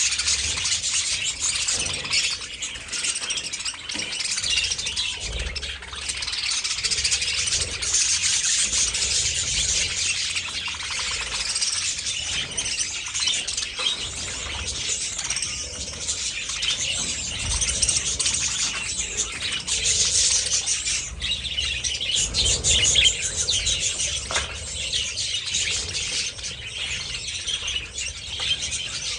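A large flock of budgerigars chirping and chattering all at once, a dense continuous twittering with no pauses.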